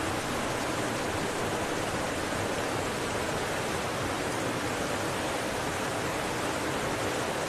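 Steady, unbroken rush of a waterfall's falling water.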